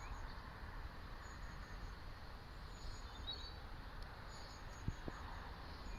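Faint background ambience: a steady low rumble with a few faint high chirps, and a couple of soft knocks near the end.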